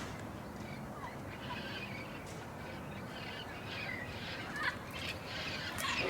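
A flock of parrots calling, with many short, harsh overlapping squawks; several sharper, louder calls come near the end.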